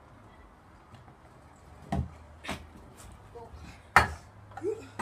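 Stunt scooter clattering on the ground: several sharp knocks, the loudest about four seconds in, from the deck and wheels hitting down as tricks are landed.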